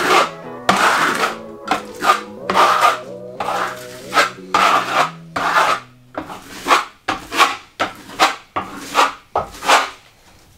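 Notched trowel scraping and spreading vinyl-flooring adhesive across a porous floor, in repeated short strokes about two a second that come faster in the second half, with background music under the first part.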